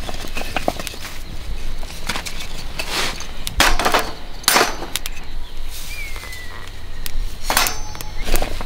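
Small cut firewood blocks clacking against one another and a woven plastic sack rustling as the wood is pulled out and laid on a campfire grill, with several sharp wooden knocks.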